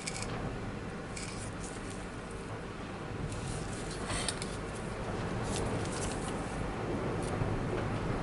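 Small metallic clicks and taps of tweezers and a soldering iron tip against a power tool's circuit board, irregular and scattered, over a steady low hum.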